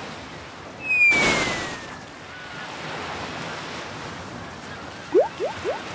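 Cartoon sound effects over a steady wash of sea and surf: a falling whistle and a loud splash about a second in, then from about five seconds a run of quick rising bubble bloops, roughly three a second, as the figure sinks.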